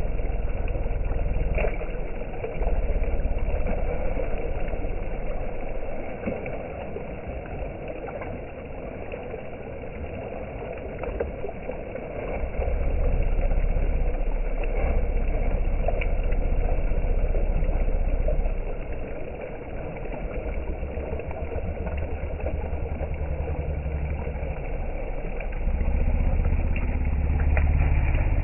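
Shallow river rushing steadily over a stony bed, with a low rumble that swells and drops in surges of several seconds.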